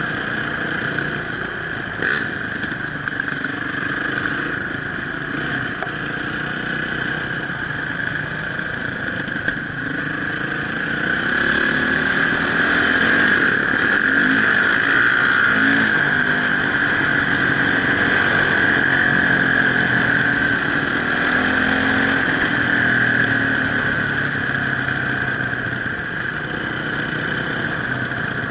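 Enduro motorcycle engine running under way off-road, its pitch rising and falling as the throttle is worked, somewhat louder through the middle.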